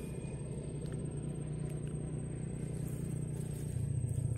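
A distant motor running steadily as a low hum, with a thin, steady high-pitched whine above it.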